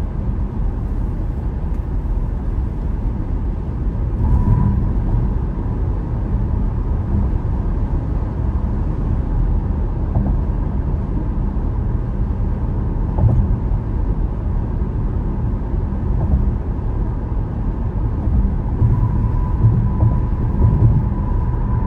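Car driving at highway speed: steady road and tyre noise with a low rumble. A faint steady high tone comes in briefly about four seconds in and again near the end.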